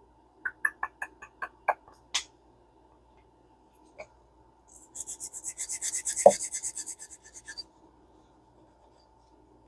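A few light clicks and taps, then a small nylon brush scrubbing rapidly back and forth on the metal foot of a vintage fishing reel for about three seconds, with one sharper knock in the middle.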